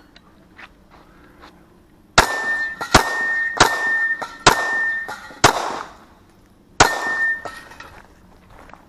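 Six .22 LR pistol shots from a PSA Dagger fitted with a CMMG .22 LR conversion kit, fired under a second apart with a longer pause before the last shot. A steady metallic ring hangs on after most of the shots.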